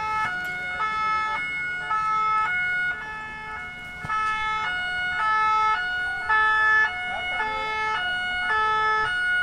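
French two-tone police siren, alternating steadily between a high and a low note about every half second.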